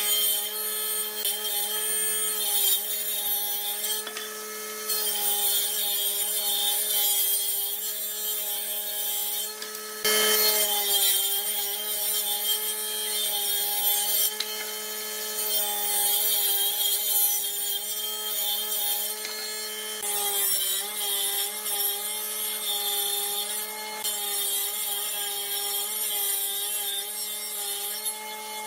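A power tool running steadily while working wood, its motor giving a steady hum under a loud hiss of cutting or abrading, with a brief break in the sound about ten seconds in.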